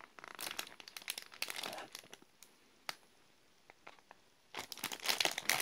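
Plastic bread wrapper crinkling as it is handled and turned over in the hands. The crinkling goes quiet for a second or two midway, with a few small clicks, then starts up again near the end.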